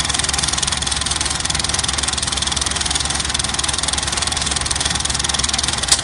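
Film projector running: a fast, even mechanical clatter over a steady hiss.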